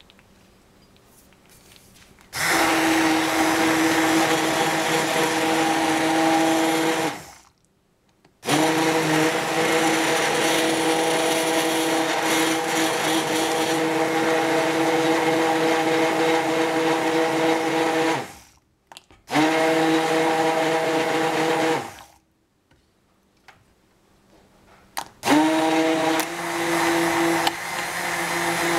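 Electric immersion blender puréeing cooked strawberries in a saucepan into a smooth coulis: a steady motor hum with the churning of the blades in the fruit. It switches on about two seconds in and runs in four bursts, stopping briefly around seven seconds, around nineteen seconds and for a few seconds after twenty-two, then starting again near the end.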